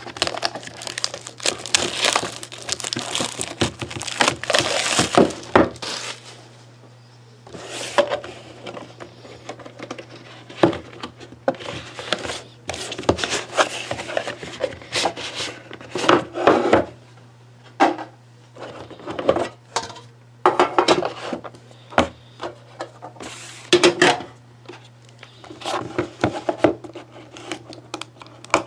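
A sealed trading card box being opened by hand: wrapping crinkling and tearing, with irregular scraping and knocks of cardboard and packaging. A steady low hum runs underneath.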